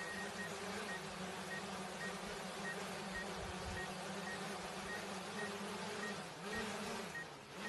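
A steady buzzing hum over a constant hiss, with a faint high beep repeating about twice a second; the sound dips briefly near the end.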